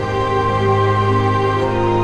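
Background music of slow, sustained chords and held notes, changing chord about a second and a half in.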